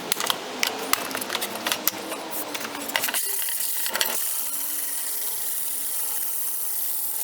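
Angle grinder with a diamond blade cutting lengthwise through a hard porcelain plank, under load without bogging down. Rapid crackling ticks come through the grinding for the first three seconds, there is a brief break about three seconds in, and then a steadier cutting noise follows.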